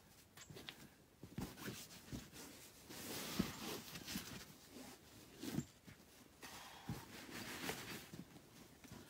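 Faint scuffs, knocks and rustling from bouldering: shoes and hands scraping and tapping on rock, and crash pads being shifted and pushed over dry leaves, with sharp clicks scattered through and longer stretches of rustling about three seconds in and again near the end.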